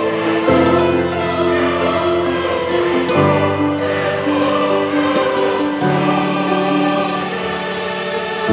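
Background music with held, choir-like voices over chords that change about every three seconds.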